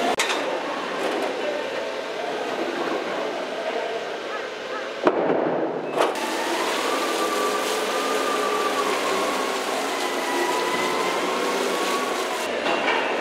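Steady machinery noise from a crane hoisting a sling-load of frozen tuna, with a faint wavering whine from about six seconds in. There are two sharp knocks at about five and six seconds.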